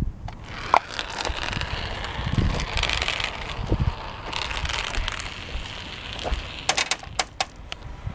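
Marbles rolling down orange plastic Hot Wheels track, a steady rolling rattle, with a quick run of sharp clicks near the end as marbles knock together. Wind rumbles on the microphone underneath.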